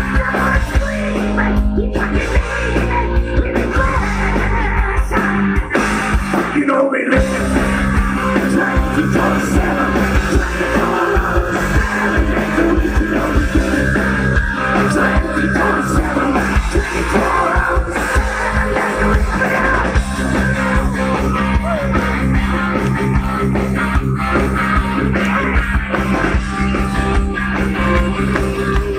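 Live heavy metal band playing loud, with distorted electric guitars, bass and a drum kit, heard from the audience. The band stops for a brief break about seven seconds in, then comes back in.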